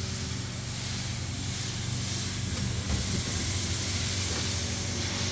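The AMFEC 510 paddle blender's powered top safety cover opening: a steady hiss over a low hum that grows slightly louder.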